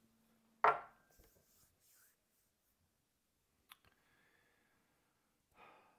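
Mostly quiet room with a few small clicks and knocks from whiskey tasting glasses being sipped from and set down on a wooden tray. The loudest is one short, sharp sound about two-thirds of a second in, with a thin click near the end.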